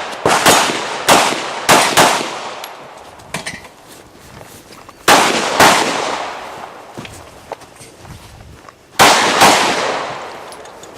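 Pistol shots fired in quick pairs: four shots in the first two seconds, then a pair after about five seconds and another pair near nine seconds, each shot ringing off.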